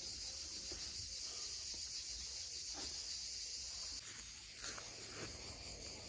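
Insects chirring in a steady high-pitched drone, with a few faint clicks.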